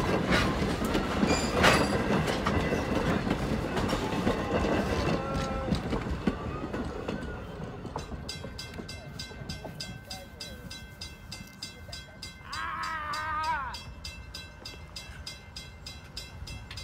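Railroad passenger coaches rolling past at a grade crossing, wheels clicking and rumbling on the rails, fading as the last car clears about eight seconds in. Then the crossing's warning bell rings on in a steady, rapid ding while the gates rise, with a brief wavering tone near the end.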